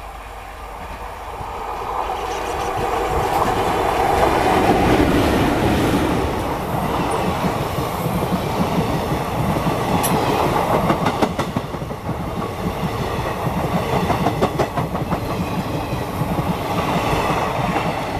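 Passenger train hauled by a WAP-4 electric locomotive approaching and passing close by. It grows louder over the first few seconds, then the coaches roll past with a rhythmic clickety-clack of wheels over the rail joints.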